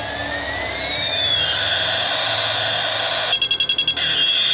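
Battery-operated toy helicopter playing its electronic siren sound effect, tones sliding up and down in pitch, over the whirr of its rotor motor. About three seconds in, the siren gives way briefly to a fast-pulsing beep before sliding again.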